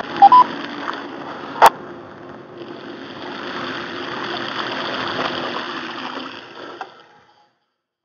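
Bicycle tyres rolling through shallow floodwater on a trail: a steady wet splashing hiss that cuts off about seven seconds in. Two short beeps sound just after the start, and there is a sharp click a little under two seconds in.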